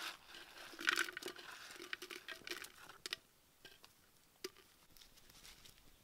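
Roasted insects being scraped by hand out of a blackened pan and tipped into a clay pot: a dry rustling and scraping with small clicks, thinning out after about three seconds, then a single sharp click about four and a half seconds in.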